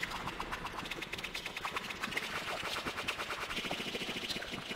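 Dense, rapid train of sharp clicks and crackles, many per second, forming a glitchy electronic texture.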